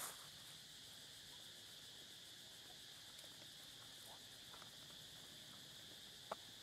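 Faint, steady high-pitched insect chorus, with one short sharp click near the end.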